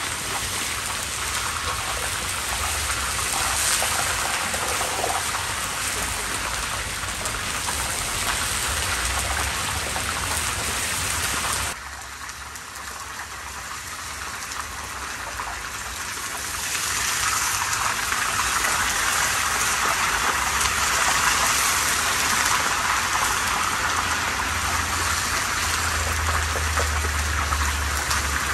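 Beef and bones sizzling and spitting in hot oil in a large cast-iron kazan, with a low steady rumble underneath. The sizzle drops suddenly about twelve seconds in, then builds back up a few seconds later.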